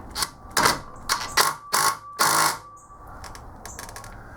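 Metal-on-metal clanks and scrapes, about five in the first two and a half seconds, with a ringing note, as the homemade valve spring compressor (a rocker arm, washer and bolt) is tapped and worked down onto the valve spring. A few faint clicks follow.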